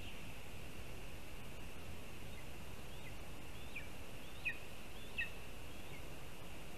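A bird giving a short series of high, falling chirps, about five in all, the two loudest about a second apart in the middle, over a steady high-pitched background hiss.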